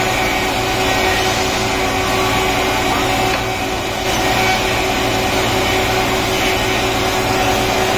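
Industrial woodworking machinery running steadily: a continuous dense drone with several steady hum tones, easing slightly for a moment a little over three seconds in.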